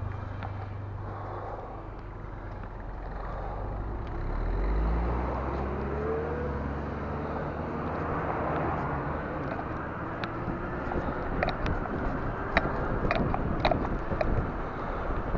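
Road traffic heard from a moving bicycle: nearby car engines hum low, and one engine note rises as a car accelerates about five seconds in. Later, wind and road rumble grow louder, with a few sharp clicks and rattles near the end.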